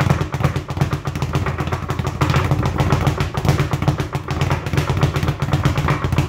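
Speed bag being punched in a fast freestyle rhythm, the leather bag rebounding off a wooden rebound board in a rapid, continuous rattle of thuds.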